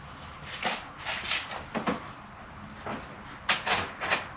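Tools and metal parts being handled during engine work: irregular clinks, clicks and rattles, with a quick cluster of them about three and a half seconds in.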